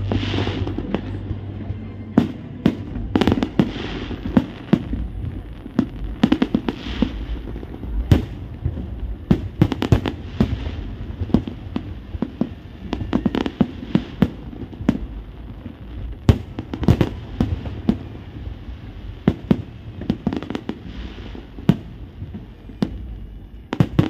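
Aerial fireworks display: a continuous barrage of sharp bangs, dozens of them at irregular spacing, some followed by a brief crackling hiss.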